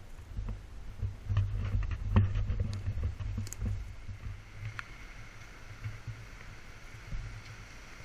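Wind rumbling on the microphone, with handling knocks and clicks over the first few seconds; after about four and a half seconds this gives way to a steady, quieter outdoor hiss.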